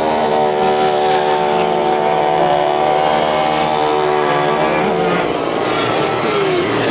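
Vintage racing kart engine running at a steady high pitch for about five seconds. It then eases off, and its pitch falls near the end as the kart slows.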